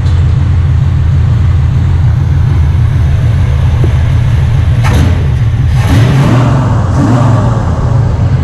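Chevrolet Chevelle's engine running, with a loud, steady, deep exhaust rumble. A short knock about five seconds in.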